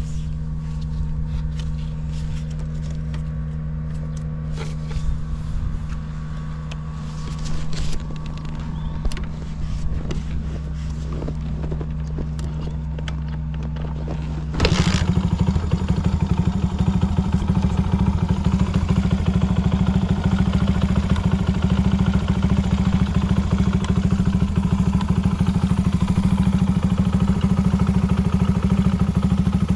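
Honda Ape 50's single-cylinder four-stroke engine, fitted with a Takegawa bore-up kit and a short exhaust, idling steadily with a few light clicks and scrapes. About halfway through it suddenly gets louder and stays louder. It runs without any abnormal noise.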